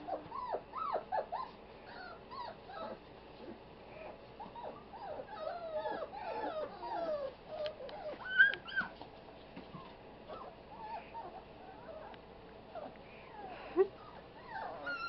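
A litter of five-week-old puppies whimpering and yipping as they play and wrestle: many short, squeaky cries overlapping one another throughout, with two sudden louder sounds about eight and fourteen seconds in.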